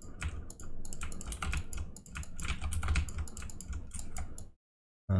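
Computer keyboard clicking in quick, irregular keystrokes, cutting off abruptly near the end.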